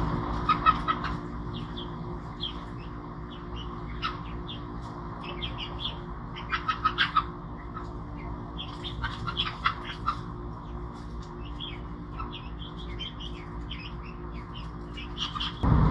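Birds chirping and calling in short, scattered bursts, over a steady low hum.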